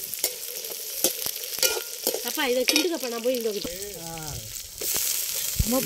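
Shallots, garlic and green chillies sizzling in hot oil in a large metal pot, stirred with a slotted metal ladle that scrapes and clicks against the pot. The sizzle grows louder near the end.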